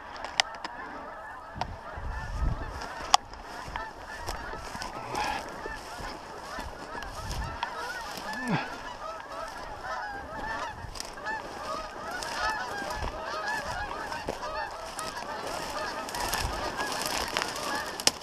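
A large flock of geese calling, many honks overlapping continuously and growing denser in the second half. Low thumps and a few sharp clicks sound over it, the loudest about three seconds in.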